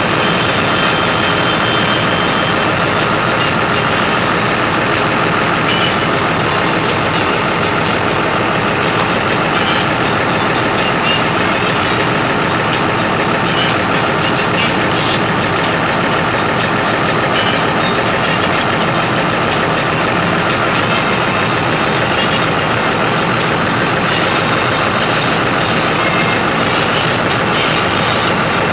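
An engine running steadily at idle, loud and unchanging throughout.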